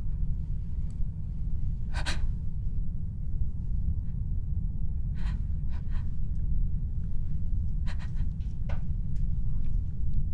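A steady low rumble, with a woman's short, sharp gasping breaths about two seconds in, twice around five to six seconds, and twice around eight to nine seconds.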